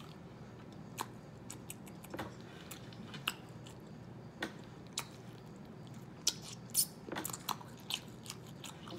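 Chewing close to the microphone: scattered short, wet mouth clicks, most of them between about six and seven and a half seconds in.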